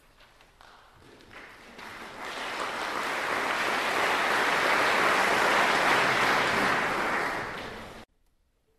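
Audience applause, a dense crackle of clapping that swells over a few seconds and then cuts off abruptly near the end.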